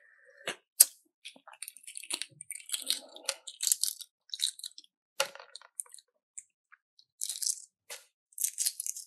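Close-miked crisp crunching and crackling from food being handled and eaten, in scattered bursts with a few sharp clicks, the sharpest about a second in and again near the middle.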